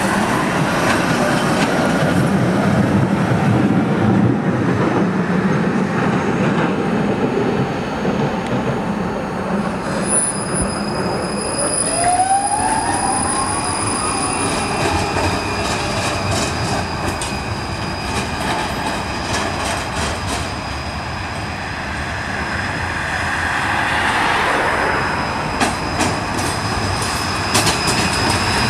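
Low-floor electric trams running on street track. From about ten seconds in there is a steady high wheel squeal as a tram takes the curve, and around twelve seconds a rising whine. Near the end come sharp clicks as a tram passes close.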